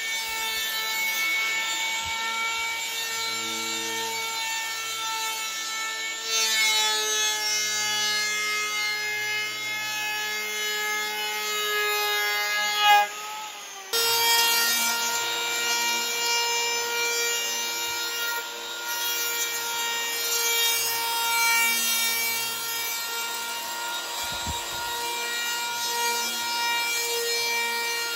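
Skil 100 electric hand planer running as it takes passes across a foam surfboard blank, a steady motor whine over a rasping cut. About halfway through it winds down and starts up again, and near the end it is switched off and spins down.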